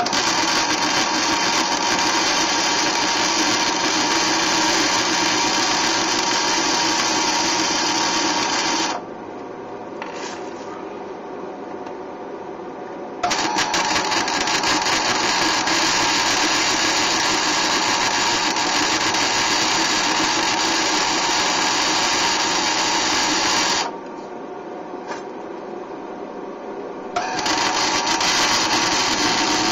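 Wire-feed welder arc crackling steadily in three runs, each starting and stopping abruptly, as a bead is laid onto a frame rivet; quieter steady hum in the two short pauses between runs.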